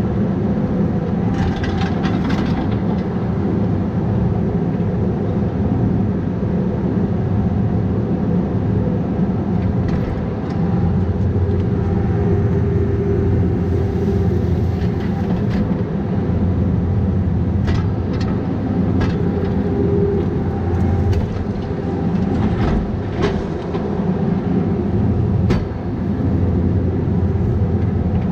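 Bobcat 337G mini excavator's diesel engine running steadily under work, with a few short knocks and clanks scattered through.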